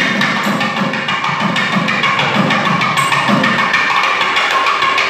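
Live Indian classical music from a student ensemble: a sustained melody over steady hand-percussion strokes.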